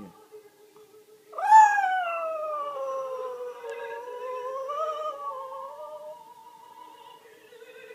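Dog howling along to music from a TV: one long howl starting about a second in, sliding down in pitch and wavering, dying away after about five seconds, with faint music underneath.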